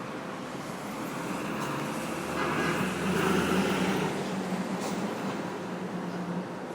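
City street traffic noise with a motor vehicle passing close by; its engine hum swells about two seconds in and fades near the end.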